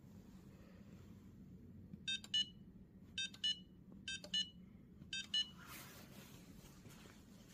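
Wall-mounted touch-button control panel beeping as its buttons are pressed: four double beeps, each pair about a second apart.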